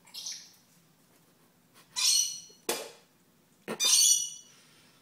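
Dusky lory screeching: three harsh, high-pitched calls, a short one at the start, then loud ones about two and four seconds in, the last the loudest and longest, as the lory asserts itself over the cats at their food. A sharp knock falls between the two loud calls.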